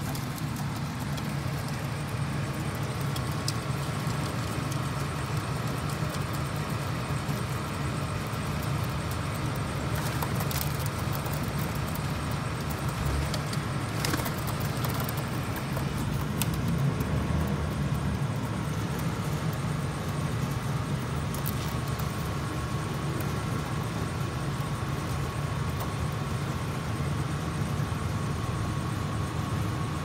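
Steady low mechanical hum of city rooftop machinery and traffic, with a faint steady whine over it and a few light clicks near the middle.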